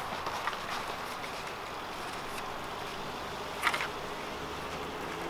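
Bag awning being rolled out and handled by hand over steady background noise, with a short clatter about three and a half seconds in.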